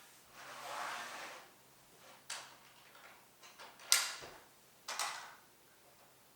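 Plastic toy garage playset being handled: a short scraping slide, then three sharp plastic clicks and knocks, the loudest about four seconds in.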